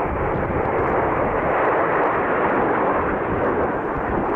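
Jet noise from a formation of Dassault/Dornier Alpha Jets with Larzac turbofan engines, heard from the ground as a steady, loud rushing sound with a low rumble underneath.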